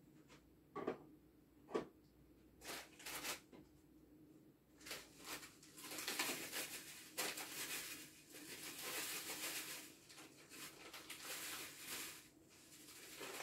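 A few light knocks and clicks of a plastic bowl being handled and set down, then, from about five seconds in, a paper bag rustling as dried herbs are shaken out of it into the bowl.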